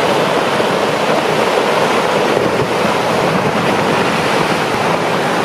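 Loud, steady rushing of turbulent water.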